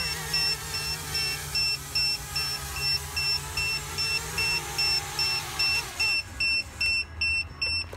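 Small FPV racing quadcopter's motors and propellers whirring with a wavering pitch as it comes down and lands, stopping about six seconds in. A steady high electronic beeping, about two and a half beeps a second, runs throughout and carries on after the motors stop.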